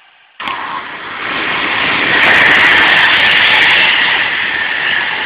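Passenger train running past close by: a loud, steady rushing noise of wheels on rail and moving air. It starts abruptly about half a second in and peaks in the middle.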